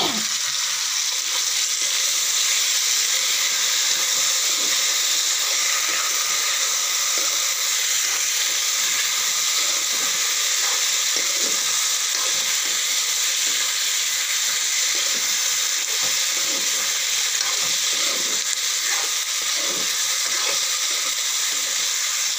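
Marinated chicken pieces sizzling as they fry in hot oil in a kadai: a steady hiss, with faint knocks now and then.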